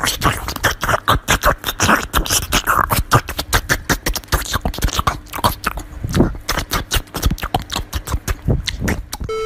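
Small white puppy biting and chewing a slice of watermelon: quick, close chewing and smacking noises, several a second.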